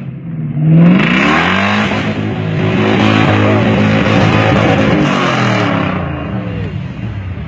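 A 4x4 off-road vehicle's engine revving hard as it drives through deep mud, its pitch climbing about a second in and holding high over a rushing noise of churned mud and water, then easing off near the end.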